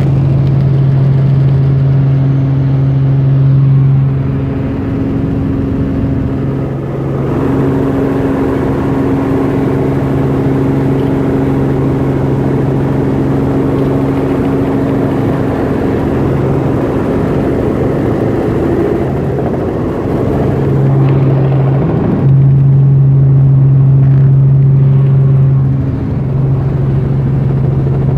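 Helicopter in flight: a loud, steady engine and rotor drone with a low hum that fades and returns a few times.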